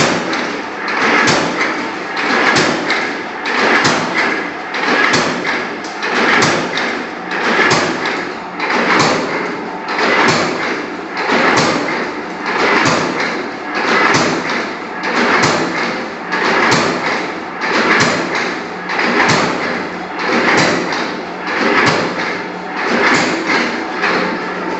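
Flywheel mechanical power press punching perforations in a steel sheet: a steady rhythm of heavy clanking punch strokes, a little under one a second, over the constant hum of the running press.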